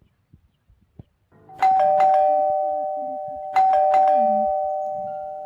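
Doorbell chime ringing ding-dong twice, about two seconds apart; each ring is a higher note then a lower one that slowly rings out.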